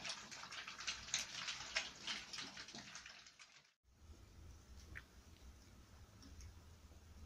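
A litter of American Staffordshire Terrier puppies lapping and slurping puppy food from a shared steel pan: a dense run of quick wet smacks and clicks. It cuts off sharply about four seconds in, leaving only a faint low hum.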